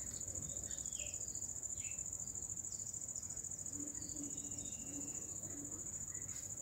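Steady, high-pitched insect trill, unbroken throughout, with a few faint short chirps behind it.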